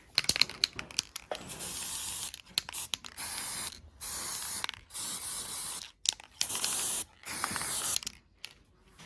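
Aerosol spray can hissing in about six short bursts, each under a second, after a few clicks at the start.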